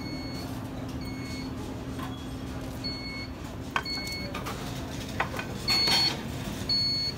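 An electronic kitchen-appliance timer beeping: short high beeps in pairs about a second apart, the pairs about two seconds apart, over a steady machine hum. A few knocks and clatters of handling on the metal equipment, the loudest about six seconds in.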